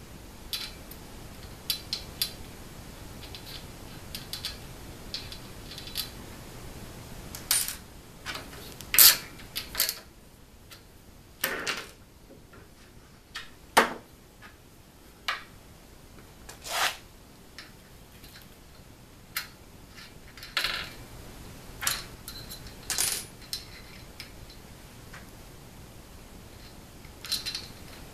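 Small metal clicks, clinks and short scrapes at irregular intervals as bolts are fitted by hand to bolt a metal corner plate onto an aluminium extrusion frame leg.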